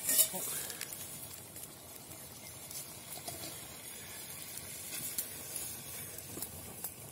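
Low steady hiss with a few faint sharp clicks scattered through it, and soft voices in the background.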